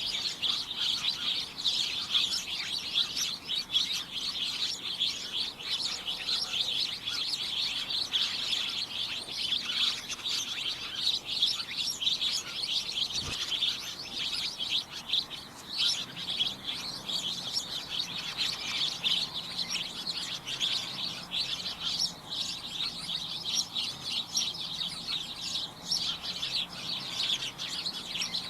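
A flock of small birds chirping, many overlapping short high chirps in a steady, dense chatter with no pause.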